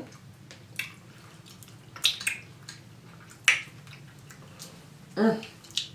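Close-miked eating of loaded nachos: a handful of sharp crunches and wet mouth smacks, with a short voiced sound about five seconds in.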